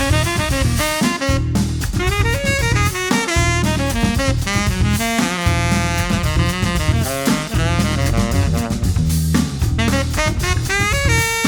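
Background jazz music with saxophone lead over a drum kit and bass.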